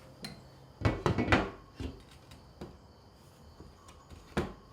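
Knocks and clunks of a welded steel tool rack being handled and hooked onto a slatted wall: a few separate knocks, the loudest cluster about a second in and another sharp one near the end.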